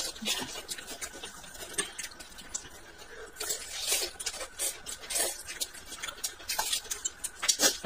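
Eating sounds: chopsticks clicking against a glass dipping bowl, and wet mouth noises as a steamed dumpling is bitten and chewed. The sounds come in scattered short clicks and smacks, thickest about halfway through and again near the end.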